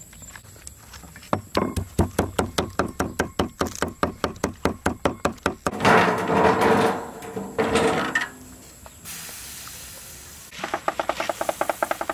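Rapid, even knocking, about six strokes a second. Then a loud hiss as a cloth is rubbed over a hot, steaming wok. Fast scraping strokes follow near the end.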